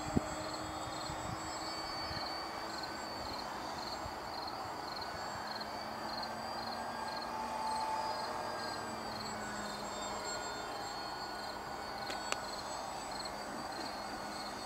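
Electric motor and propeller of a HobbyKing Tundra RC plane droning faintly while flying high overhead. An insect chirps steadily about twice a second, and there is a sharp click just after the start and another near the end.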